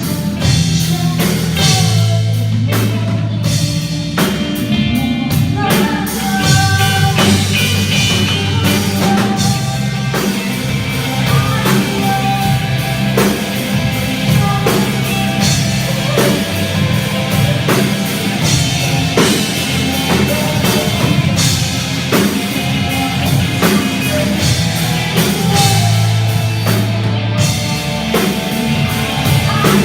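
A rock band playing loudly on a drum kit, electric guitar and bass guitar.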